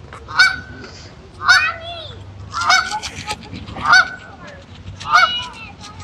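Canada geese honking: about five loud, separate honks roughly a second apart.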